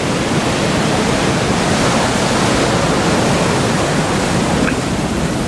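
Steady rush of sea surf washing against the rocks.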